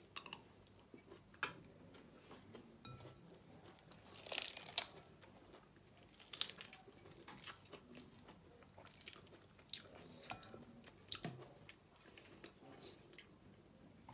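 Close mouth sounds of eating a spoonful of rice and curry-fried shellfish: chewing with scattered wet clicks and smacks, a louder cluster about four and a half seconds in.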